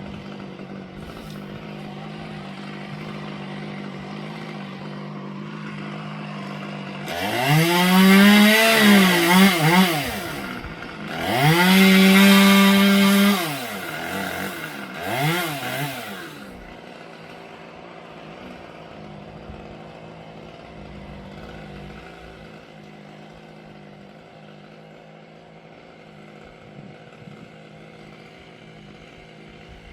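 Two-stroke chainsaw idling, then revved hard twice for a few seconds each, its pitch climbing and wavering through the first run and holding high through the second, then blipped briefly once more before settling back to a quieter idle.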